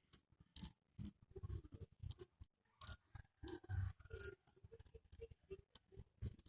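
Faint, irregular small clicks and light scrapes of a motorcycle engine valve and tools being handled while valve-lapping compound is dabbed around the valve face.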